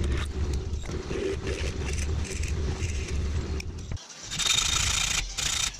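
Bench drill press running, its twist bit cutting into a steel part held in a drill-press vise, with a steady low hum. About four seconds in this stops, and a steady high hiss follows for about a second and a half.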